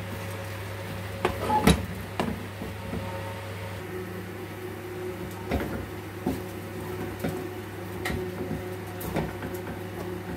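Scattered knocks and clatters of handling in a kitchen, loudest as a short cluster about two seconds in, over a steady low hum.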